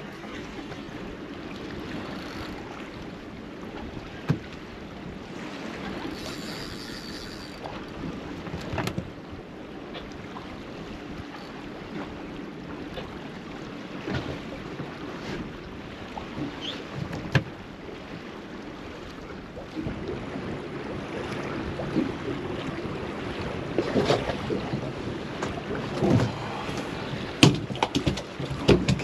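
Small boat on the water: a steady wash of water and wind, with scattered knocks and splashes that grow louder and more frequent near the end.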